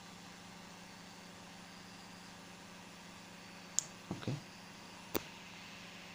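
Quiet room tone: a steady low hum with faint hiss. About four seconds in there is a sharp click followed by a short, duller knock, and a second sharp click comes about a second later.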